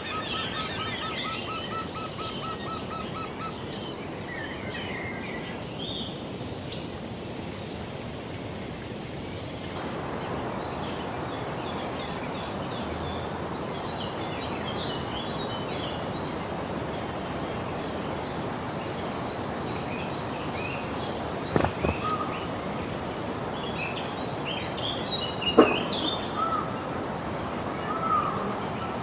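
Various wild birds chirping and calling over a steady background hiss: a fast pulsed trill at the start, then scattered short chirps, and repeated rising-and-falling whistled notes near the end. Two sharp knocks stand out, one a little past the middle and one about three-quarters of the way through.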